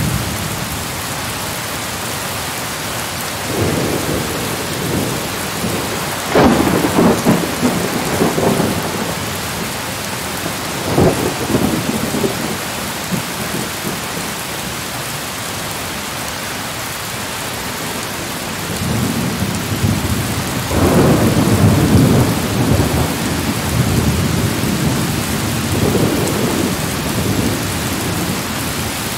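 Steady heavy rain with thunder rumbling several times. The longest roll builds from about two-thirds of the way through.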